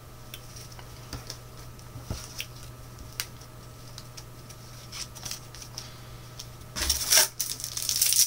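Match Attax trading cards being handled, with scattered light clicks and ticks over a steady low hum. About seven seconds in comes a louder rustling crinkle, typical of a foil card packet being pulled from the box and handled.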